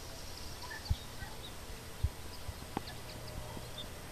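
Faint, steady low rumble of an Airbus A350's Rolls-Royce Trent XWB turbofans on a low-thrust takeoff roll, heard from far across the airfield. Small birds chirp faintly over it, and three dull thumps come about one, two and nearly three seconds in.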